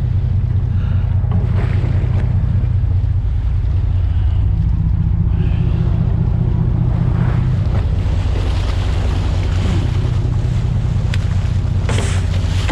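Fishing boat's engine running steadily, with water rushing and splashing along the hull and wind on the microphone; a sharper splash near the end.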